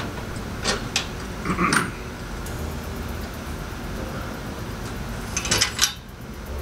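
Metal knocks and clinks from a 2010 Kawasaki Z1000's stock exhaust header pipes being worked loose by hand: a few sharp knocks about a second in, then another short cluster about five and a half seconds in.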